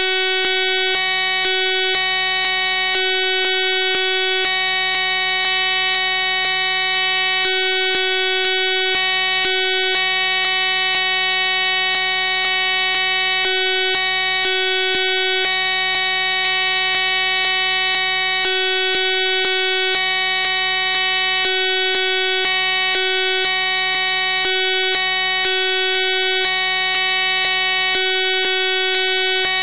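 Loud, steady electronic buzzing made of many fixed tones at once, with a lower hum cutting in and out in blocks of about a second.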